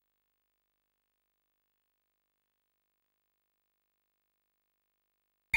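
Digital silence, until electronic music with a beat cuts in abruptly at the very end.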